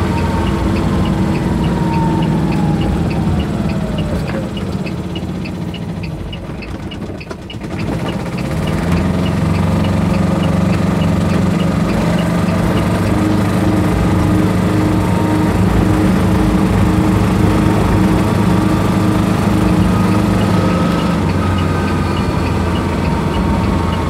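Small Kubota diesel engine of an Aixam Mega Multitruck microcar van running while driving, heard from inside the cab close to the engine. Its note falls and quietens over the first several seconds, then picks up again about eight seconds in and runs steadily, with a light regular ticking over it.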